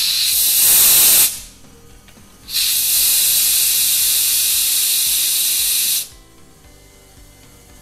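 Pressurised CO2 hissing out of the pressure relief valve on a small stainless ball-lock keg's lid, vented twice: one release stops about a second in, and the next runs for about three and a half seconds before cutting off sharply. This is the keg being purged with CO2, the gas let out several times to drive the remaining air out before the beer goes in.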